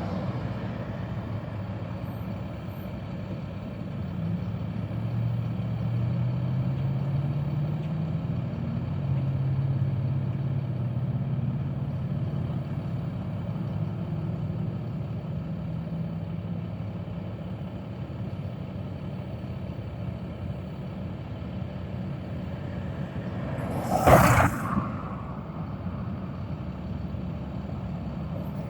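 Steady low rumble of a motor vehicle engine running, with a faint rise and fall in its tone, and one brief loud noise about twenty-four seconds in.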